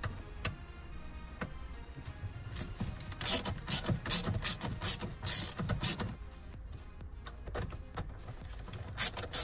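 A screwdriver driving the Phillips screws that hold a BMW CIC navigation unit in its dash bracket: a quick run of short scraping bursts, about two or three a second, starting about three seconds in and lasting some three seconds, then starting again near the end.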